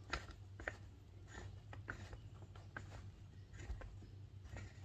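Faint, irregular clicks and rubbing as machined metal triple-tree parts are turned in the hands and set against a wooden bench, over a low steady hum.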